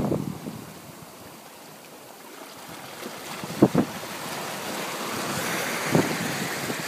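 Sea surf washing and foaming over a rocky reef shelf, swelling louder in the second half. Wind buffets the microphone in two short thumps, about halfway through and near the end.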